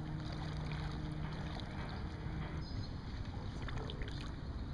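A motorboat's engine hums steadily and ends about two and a half seconds in, over low wind rumble on the microphone.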